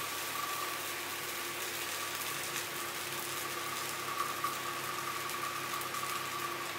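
Steady mechanical hum with a constant high whine over a low pulsing drone and even hiss.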